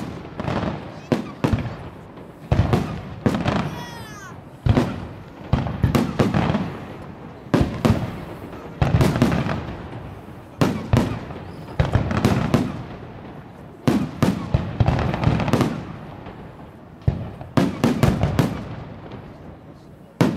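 Aerial fireworks going off in quick succession, a sharp bang every second or so, each followed by a rolling echo, with a few whistling shells rising about four seconds in.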